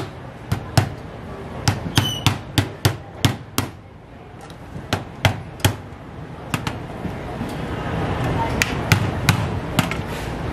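A metal rod knocking on a mud crab claw to crack the shell: sharp knocks in quick runs of a few taps at a time, with pauses between runs. A steady hiss grows louder in the second half.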